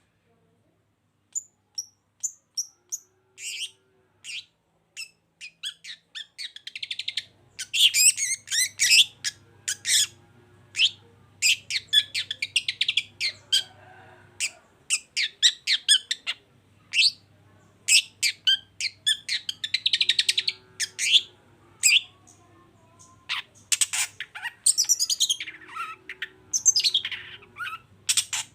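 Long-tailed shrike (cendet) singing: sharp, high chirps, scattered at first, turning about seven seconds in into a dense run of rapid chattering phrases.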